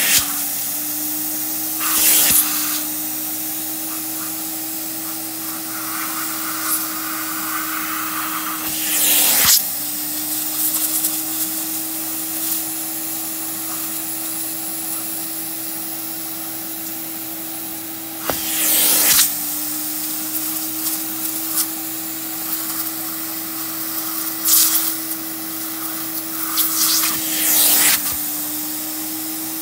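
Upholstery extractor's vacuum motor running steadily as its clear hand tool is drawn over couch fabric, drawing out water. Several times a loud rush of hissing air cuts in at the end of a stroke, and the motor's tone sags briefly each time before recovering.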